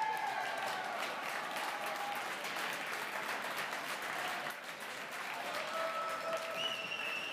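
Spectator crowd applauding and cheering, with scattered shouting voices.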